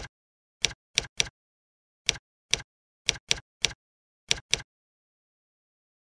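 Computer keyboard keystrokes: about a dozen separate key clicks in an uneven typing rhythm, with a pause of over a second near the end.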